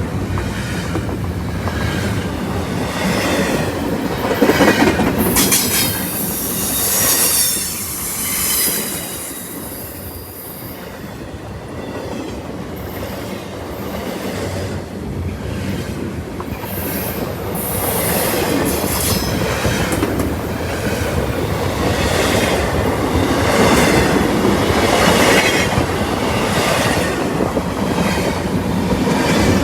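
Freight train cars rolling past, the wheels squealing on the rails in wavering high tones that swell and fade, with a clickety-clack over the rail joints.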